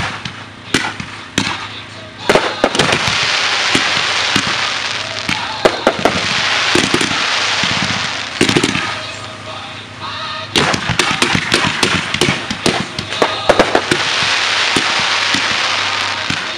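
Display fireworks firing in a dense barrage: repeated sharp bangs from cakes and mines over a steady hiss of comet tails, with the bangs thickest in the last third. Music plays faintly underneath.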